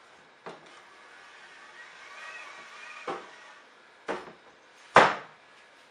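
Motor carriage being moved along an aluminium V-slot rail, giving four sharp knocks, the loudest about five seconds in. A faint wavering whine sounds between the second and third second.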